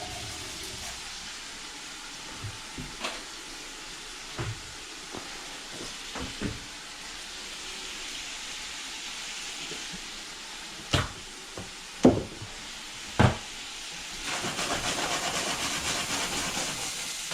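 Shrimp frying in a pan, a steady hissing sizzle, with scattered light knocks of utensils. Three sharper knocks come about eleven to thirteen seconds in, and the sizzle grows louder near the end.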